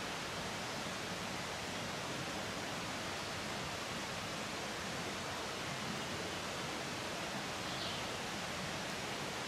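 Steady, even outdoor rushing noise with no distinct events, and a faint brief high chirp about eight seconds in.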